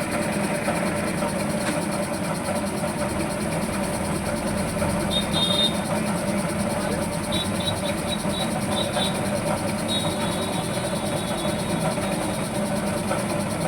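Steady din of engines running, with a few short high-pitched tones in the middle.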